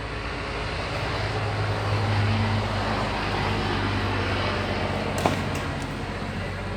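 Isuzu Fargo van's 4FG1 engine running with a steady low hum, and a single sharp click about five seconds in.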